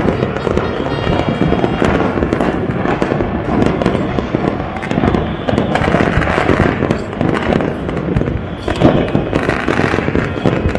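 Dense, unbroken crackle of firecrackers and fireworks going off all over the city, countless pops and bangs overlapping into a steady din, with one louder bang about nine seconds in.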